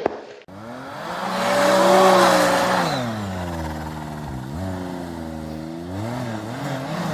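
Snowmobile engine revving, loudest about two seconds in, its pitch climbing and then falling away, with a brief dip in pitch past the middle and a wavering throttle near the end.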